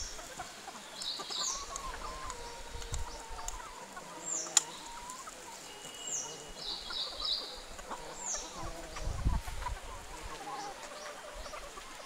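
A flock of domestic hens clucking while they feed, with a high, falling chirp repeated every second or two over them. A single sharp click sounds about four and a half seconds in.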